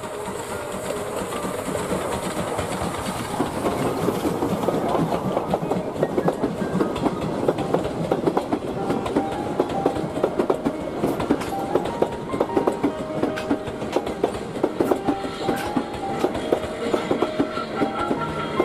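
Passenger train passing close by, led by a steam locomotive dressed as Thomas the Tank Engine: growing louder over the first few seconds, then the coach wheels clickety-clack steadily over the rail joints as the coaches and a trailing electric locomotive roll past.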